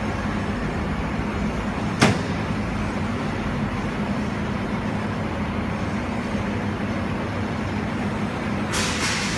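Fiber laser welding machine running with a steady low hum and whir while the system charges up before it is ready. A single sharp click sounds about two seconds in, and a couple of short noisy bursts come near the end.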